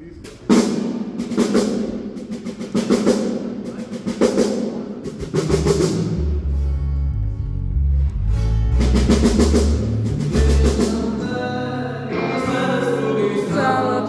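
Rock band sound-checking on stage. A drum kit plays a steady beat, the electric bass guitar comes in with heavy low notes about five seconds in, and a voice starts singing over guitar near the end.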